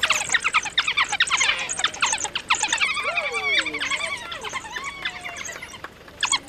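African wild dogs twittering: many rapid, high-pitched chirps and squeals overlapping, with a lower whine that rises and then falls in pitch about three seconds in.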